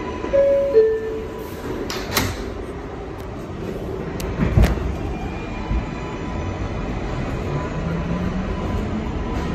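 R142A subway car's two-note descending door chime, then the doors closing with a knock about two seconds in and another thud a couple of seconds later. From about six and a half seconds in, the traction motors give a rising whine as the train starts to pull away.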